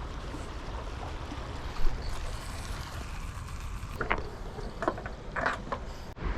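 Steady low rumble of wind on the microphone, with a single thump about two seconds in and a few short clicks and knocks near the end.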